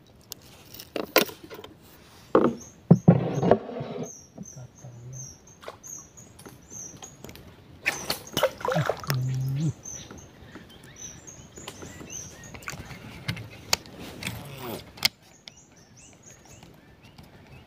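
Scattered clicks and knocks of fishing tackle (lure, pliers, rod and baitcasting reel) being handled in a small boat during a lure change, with short runs of high chirping behind.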